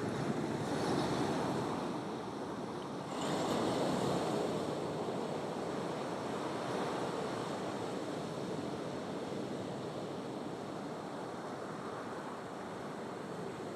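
Ocean waves breaking: the surf swells near the start, a wave crashes about three seconds in, then the wash slowly eases into a steady rush of surf.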